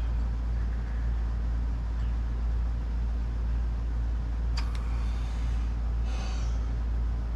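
A steady low hum, with a single sharp click about four and a half seconds in and a brief hiss about six seconds in.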